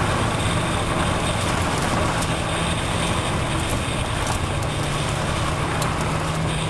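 Vehicle driving along a gravel road: steady engine hum with tyre and road noise.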